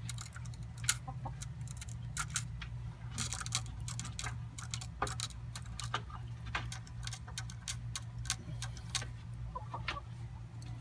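Backyard chickens at the coop: many irregular sharp clicks and taps, with an occasional short cluck, over a steady low hum.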